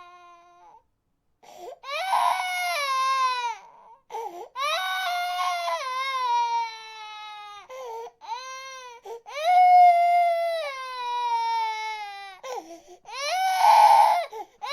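A voice crying in several long, high-pitched wails, each one sliding down in pitch, with short breaks between them.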